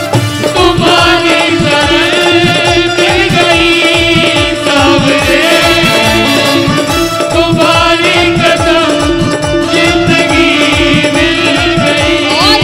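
Hindi devotional bhajan performed live: sung melody over a steady held accompaniment note and a regular beat of hand-drum strokes with rattling percussion.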